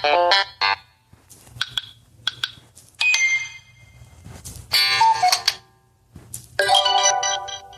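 Samsung Galaxy S25 Ultra alert tones played one after another: a series of short electronic chimes and jingles, each lasting under a second, with brief clicks between some of them.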